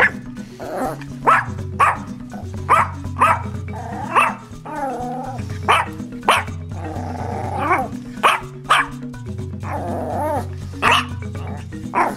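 A dog barking repeatedly, short sharp barks about a second apart, with a few longer calls between them that rise and fall in pitch. Background music with steady low notes runs underneath.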